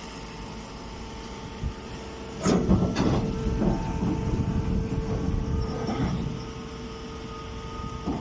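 Hydraulic straw baling press running: a steady motor and pump hum, joined about two and a half seconds in by a series of loud metal clanks that carry on for a few seconds.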